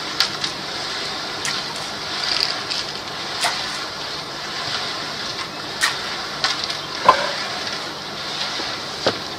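Koi taking food at the pond surface, with scattered sharp splashes and slurps, over a steady rushing hiss.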